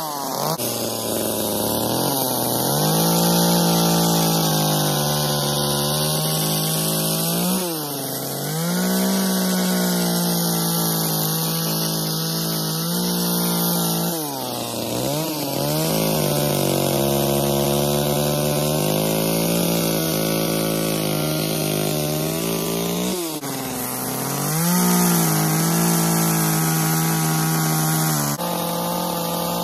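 Small chainsaw running at high revs and cutting into a wooden log. About five times the engine pitch drops briefly and climbs back as the throttle is eased and reapplied between cuts.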